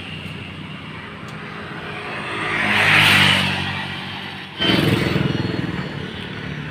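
Engine and vehicle noise: a steady low engine hum, a vehicle passing by about three seconds in that swells and fades, then an abrupt change to louder, rougher engine noise.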